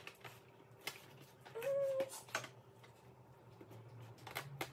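Quiet scraping and light clicking of a spoon spreading refried beans in an aluminium foil pan. About one and a half seconds in, a brief louder sound with a single held pitch.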